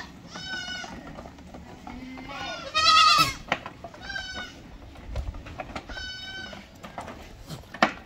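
Goat kids bleating: four separate bleats, the second, about three seconds in, the loudest. A sharp knock comes just before the end.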